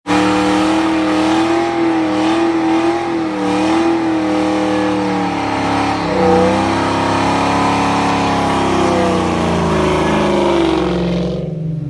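A car engine running, its pitch rising and falling as it is revved, cutting off abruptly near the end.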